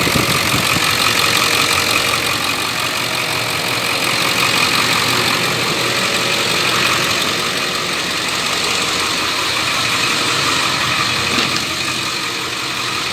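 2003 Ford F450's 7.3-litre turbo-diesel V8 idling steadily, running again after a new camshaft position sensor cured its crank-but-no-start fault.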